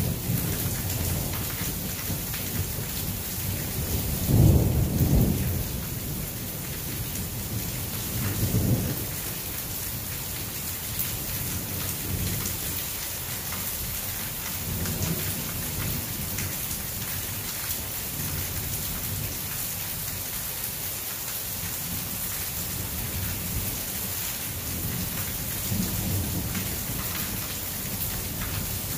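Thunderstorm: steady heavy rain hissing on surfaces, with thunder rumbling. The loudest roll of thunder comes about four seconds in, a shorter one follows a few seconds later, and fainter rumbles come near the middle and near the end.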